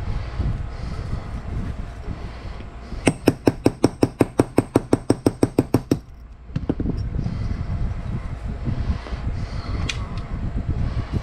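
A rapid, even run of sharp metallic clicks, about seven a second for some three seconds, over a low rumbling background.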